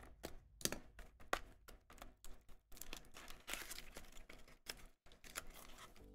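Trading cards being handled and flipped through: a quick run of soft clicks and taps with brief rustles as the cards slide against each other.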